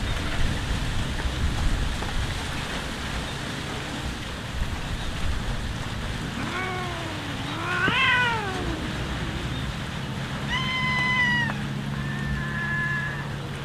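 Cats meowing about four times in the second half, one call rising then falling and the later ones held level, over a steady hiss of background noise.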